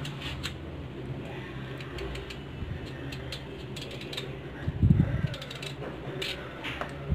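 Small knife paring the green outer skin off a piece of watermelon rind: a run of short, crisp scraping clicks as the blade cuts through. There is one dull low bump about five seconds in.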